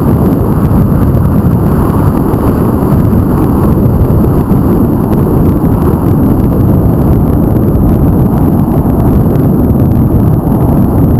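Steady, loud wind rumble buffeting an action camera's microphone while it rides along a road.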